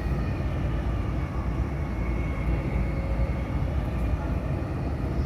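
Steady low rumble of a passenger train running along the line, heard from inside the carriage, with a faint steady high whine.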